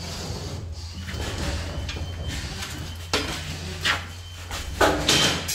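Large fibre-cement sheets being handled: scraping and sliding against each other, then a few sharp knocks in the second half, the loudest near the end.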